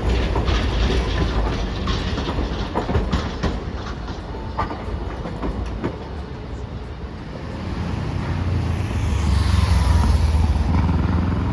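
Streetcar wheels clacking over the rail joints and points of a tram junction, many sharp clicks over a steady rumble, then a louder rumble of a passing vehicle building about eight seconds in.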